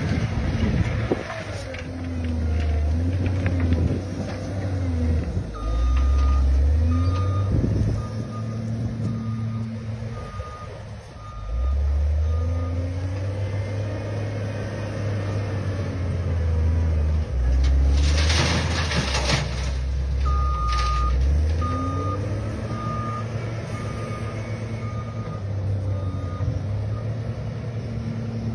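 CASE wheel loader's diesel engine running under load, its revs rising and falling as it works the dirt. The reversing alarm sounds in two runs of short beeps, about one and a half a second, and a rush of noise lasting about a second and a half comes around two-thirds of the way through.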